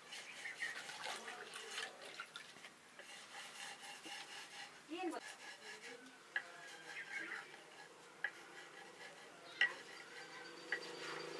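Quiet kitchen handling sounds: soft rubbing and shuffling of hands over flour and a wooden rolling board, with a few sharp clicks scattered through the second half.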